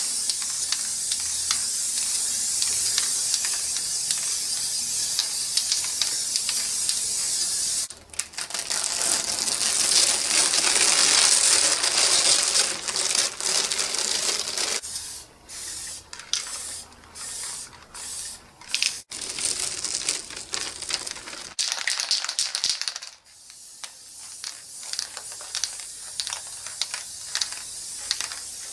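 Aerosol spray paint cans hissing as paint is sprayed onto a stencil: one long continuous spray, a brief stop about eight seconds in, another long spray, then many short bursts with gaps between them.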